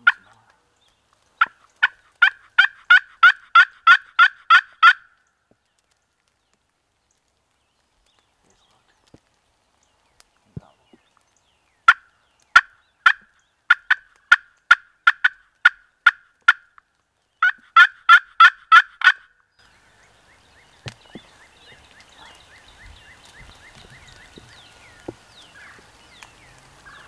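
Turkey yelping: three runs of loud, evenly spaced yelps, about three notes a second, the third run quicker and shorter. Faint rustling follows after the last run.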